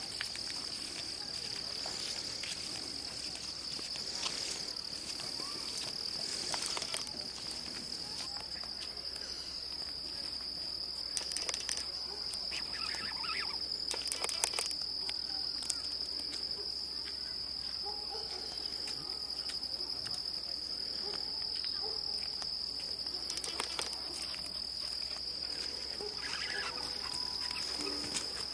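Steady high-pitched insect chorus, one unbroken buzzing tone, with a few faint scuffs and rustles.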